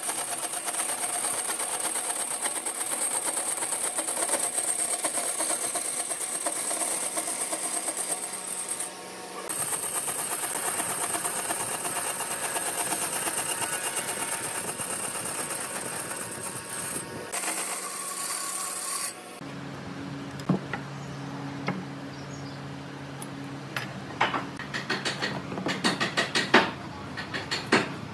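Band saw running and cutting through a wooden frame piece, a steady hissing whine with two short breaks. About two-thirds of the way in it gives way to a low steady hum with light clicks and taps of a steel square and pencil on a wooden workbench near the end.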